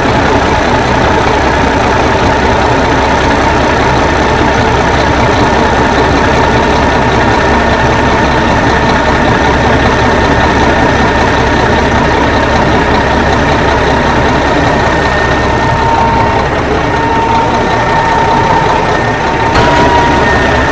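Old Ford 900 truck engine running steadily, with a thin high whine held over the engine noise.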